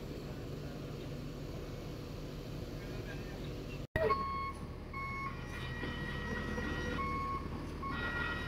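Bus diesel engine running with a steady low rumble. After a short break about four seconds in, the rumble goes on under repeated electronic beeps on a single high tone that stop and start, as a bus pulls away.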